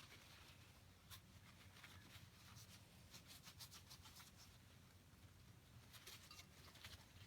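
Faint scratching and rubbing of baked-on thermal paste being scraped off an Xbox 360 chip, in many short strokes.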